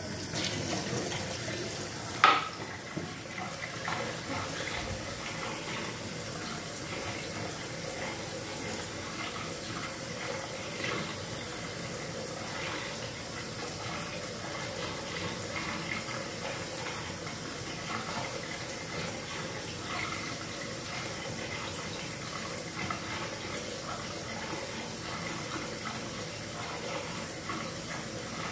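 Kitchen tap running, water splashing into a glass and then into the stainless-steel sink, with one sharp knock about two seconds in as the glass is set down on the stone counter. The running water then goes on steadily.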